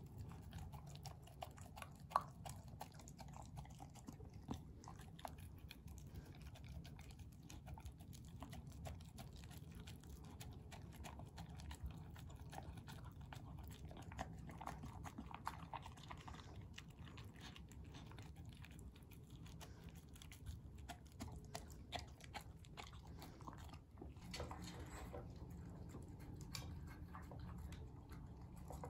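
A beagle licking and chewing up the last of its food, with many small irregular clicks of tongue and teeth against a plate and a wooden feeder tray, and one sharper click about two seconds in.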